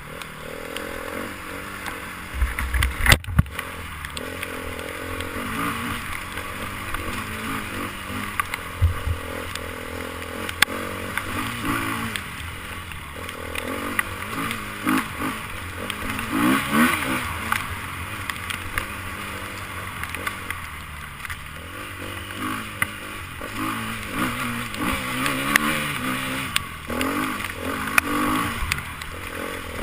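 Enduro motorcycle engine revving up and down over and over, with knocks and clatter throughout and a heavy thump about three seconds in.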